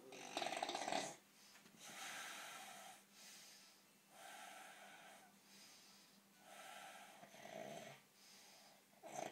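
Snoring: four long, noisy snoring breaths about two seconds apart, the first the loudest.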